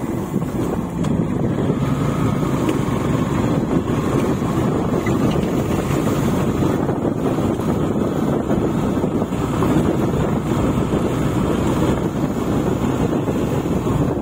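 Steady wind rushing over the microphone of a moving motorcycle, mixed with the bike's engine and road noise.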